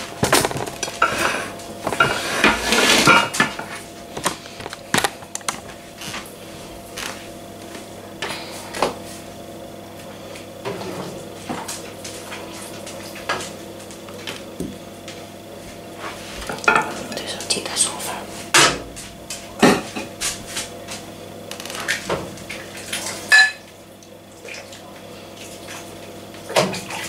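Soup being served from a pot into a ceramic bowl: repeated sharp clinks and knocks of a serving utensil against the pot and the bowl, over a steady low hum.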